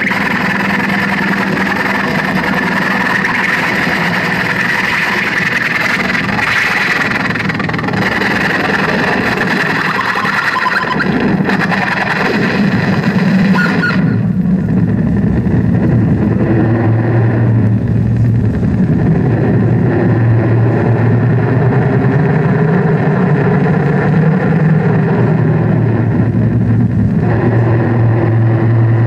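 Live noise music: a loud, dense wall of harsh electronic noise. About halfway through the high hiss cuts out suddenly, leaving a steady low drone.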